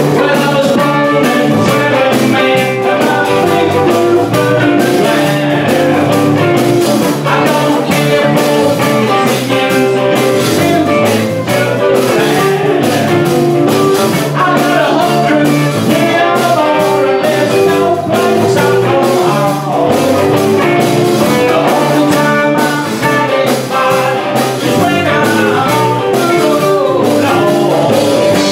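A live rock band playing a blues-rock number, loud and steady: amplified electric guitars, bass and a Gretsch drum kit keeping a driving beat, with a singer's vocals.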